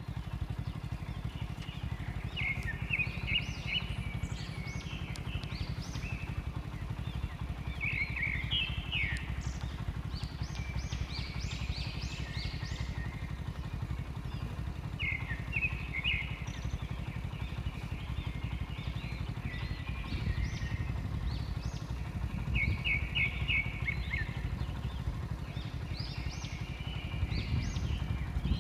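A steady low rumble of an idling vehicle engine, a little stronger near the end. Over it, birds call in repeated phrases of quick, high chirps every few seconds.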